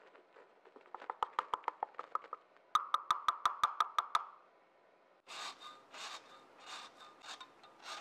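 Two quick runs of light, ringing metallic taps, about seven a second, while powdered sugar is sifted into a stainless mixer bowl. About five seconds in, these give way to a lemon being grated on a fine rasp zester: a scrape roughly every half second or so.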